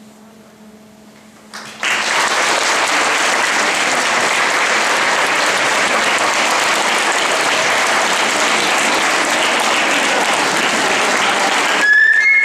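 Audience applauding: the clapping starts about two seconds in, holds steady, and cuts off sharply near the end. A few brief high tones follow.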